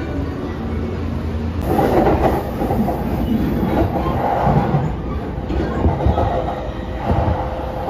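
Train running on the rails, a steady rumble with rattling from the wheels and track that grows louder about two seconds in. A thin steady whine comes in during the second half.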